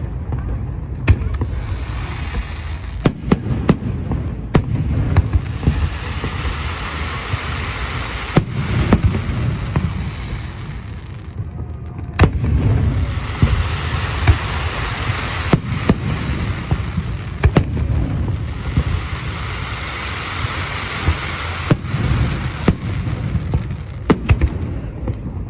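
Aerial fireworks going off in a dense barrage: many sharp bursts over a constant low rumble, with a steady high hiss that breaks off briefly around eleven seconds in before resuming.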